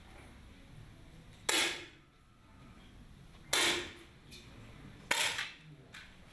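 Three 10 m match air rifle shots from different firing points, roughly two seconds apart. Each is a sharp pop with a short echo in the hall.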